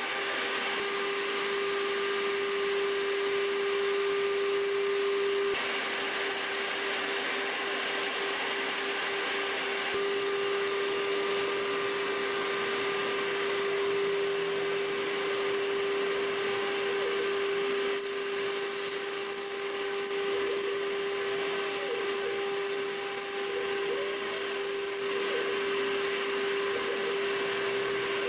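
Homemade CNC gantry router running with a steady high whine from its spindle over a broad cutting noise. The noise shifts in character a few times, with a high hiss added for several seconds past the middle.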